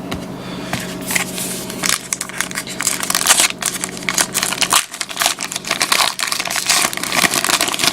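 Crinkling and tearing of a baseball card pack wrapper being opened and handled by hand: a dense run of irregular crackles that gets busier about two seconds in. A faint steady hum lies underneath.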